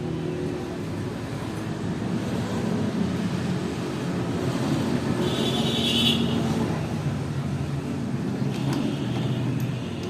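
A vehicle engine running, its low drone shifting in pitch, with a brief hiss about five to six and a half seconds in.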